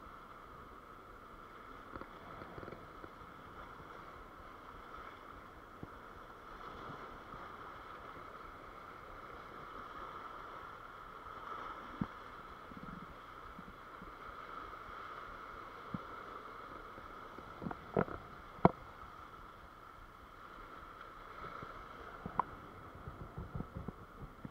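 Surf washing against sea rocks, a steady dull wash. Over it come a few sharp clicks or knocks, the loudest two close together about three quarters of the way through, then a quick run of smaller ones near the end.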